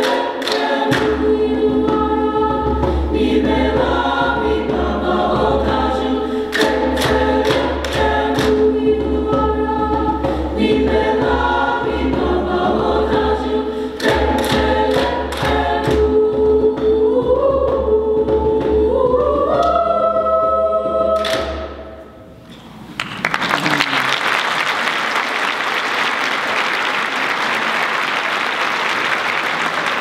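Mixed high school choir singing with the singers clapping along in rhythm. The song climbs to a final held chord that cuts off about three-quarters of the way through, and the audience then applauds.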